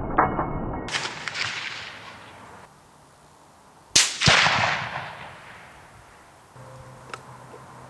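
A supersonic rifle bullet cracking past the microphone about four seconds in, followed about a third of a second later by the rifle's report arriving from several hundred yards away and echoing as it fades. Before it, the fading echo of an earlier shot.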